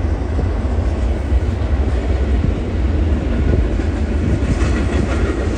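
Alaska Railroad freight train rolling past: a steady, loud rumble of the cars on the rails.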